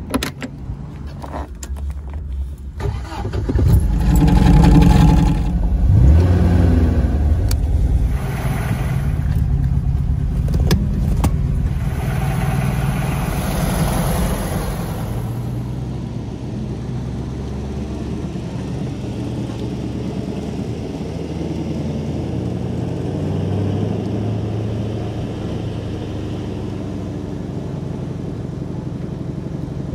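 A car door clicks open and shut, then a car engine starts about four seconds in, revs up a few times, and settles to a steady idle for the rest of the time.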